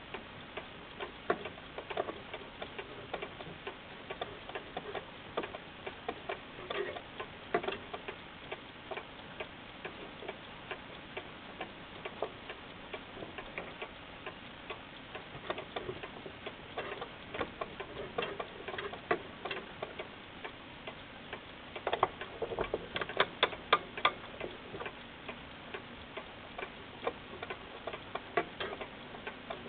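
American pendulum alarm clock ticking steadily. About 22 seconds in there is a brief run of louder clicks.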